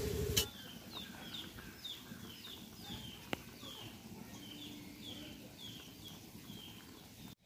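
A small bird chirping over and over, a short falling note about twice a second, over a faint steady background. In the first half-second, a louder rushing noise cuts off abruptly.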